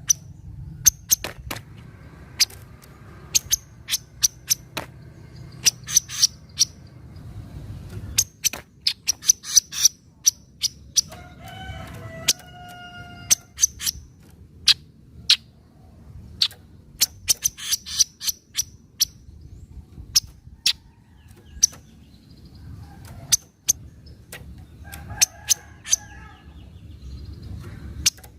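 Kaso-kaso (chestnut-capped babbler) giving its sharp 'nyecret' chatter: dry, clicky notes in quick runs and clusters. A brief, lower call with a clear pitch comes about twelve seconds in.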